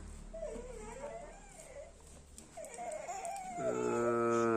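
A little boy crying and whimpering while being massaged, the whimpers wavering in pitch, then a longer, louder held cry near the end.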